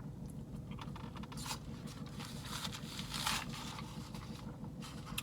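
Burrito wrapper being handled: rustling, crinkling and scraping, with scattered small clicks and two brief louder crinkles about one and a half and three seconds in, over a steady low hum.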